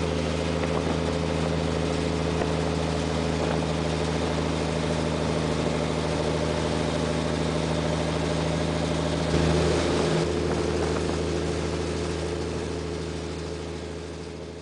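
Crab-fishing boat's inboard engine running steadily under way, its drone mixed with the rush of wake and wind. There is a brief louder surge of water noise about nine seconds in, and the whole fades out over the last few seconds.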